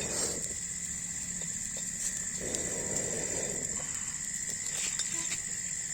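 Insects chirring in a steady, high-pitched drone, with a few faint clicks near the end.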